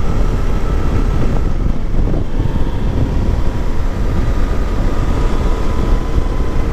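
Riding noise on a Suzuki V-Strom 800 DE: loud, steady wind rush on the microphone with the bike's parallel-twin engine running underneath. A faint whine drops in pitch about two and a half seconds in.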